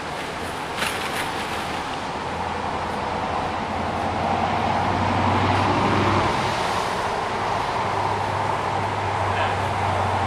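Diesel passenger train running past on the seafront line: a steady low engine hum with wheel-and-rail rush. It grows louder to a peak around the middle and stays strong as the long train goes by.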